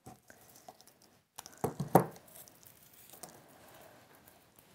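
Garden secateurs cutting a foliage stem: a couple of sharp snips about two seconds in, with quiet rustling of stems and foliage being handled.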